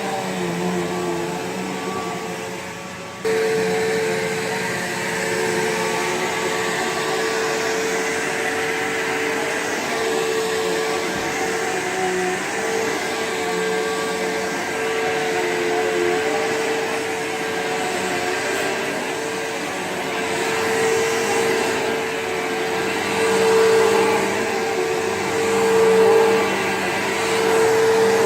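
Bissell PowerGlide Platinum bagged upright vacuum running, a steady motor whine over a rush of airflow. About three seconds in it becomes suddenly louder, then holds steady with small swells in level near the end.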